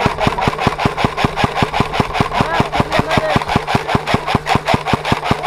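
Airsoft gun firing sustained full-auto: a steady, even clatter of about eight shots a second over a low motor hum.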